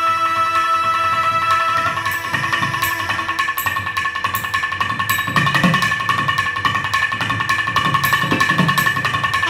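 A pair of nagaswarams playing, holding a long steady note that gives way about two seconds in to a wavering melodic line. Thavil drumming runs under the melody, with sharp stick strokes and deep thumps in a steady rhythm.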